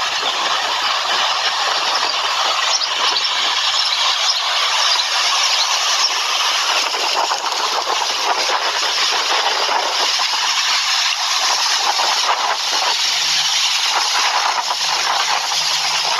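Strong thunderstorm wind gusting through leafy trees: a loud, steady rushing of thrashing leaves.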